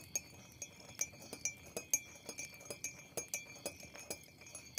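A scatter of light, irregular clicks and clinks, several a second, over a faint steady high-pitched tone.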